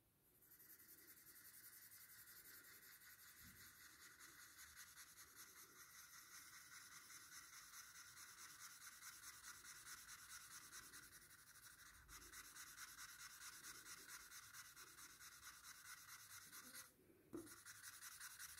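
Faint, quick scratchy strokes of a drawing tool rubbing and shading on paper, pausing briefly twice.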